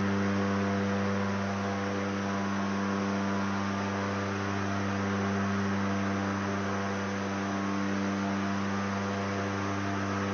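Steady drone of the Turbo Commander's twin turboprop engines and propellers in the cockpit during the climb-out: a low, even hum with a stack of steady tones over a hiss.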